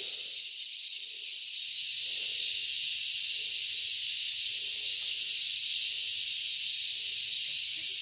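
Garengpung cicadas buzzing in a steady, high-pitched drone, the insect call taken locally as a sign of the dry season.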